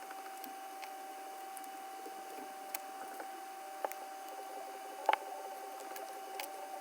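Plastic opening card being worked under a phone's glued back cover, cutting through the double-sided tape: faint scraping with a few small clicks, the sharpest about five seconds in, over a steady faint whine.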